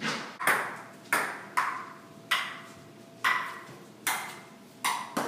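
Table tennis ball hits: about nine sharp clicks of the ball bouncing off the table and paddle, unevenly spaced, each fading quickly.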